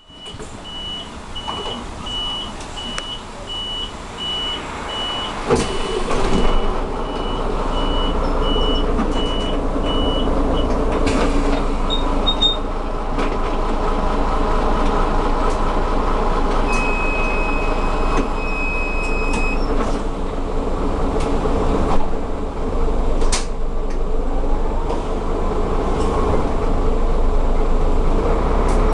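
Van Hool A320 city bus's diesel engine starting about five and a half seconds in, then idling steadily, heard from inside the passenger cabin. A high electronic beep repeats in a steady rhythm for the first ten seconds, and a longer beep sounds again later on.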